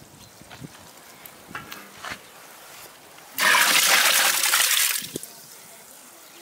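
Water gushing in a short burst of about a second and a half, after a few light clicks and knocks.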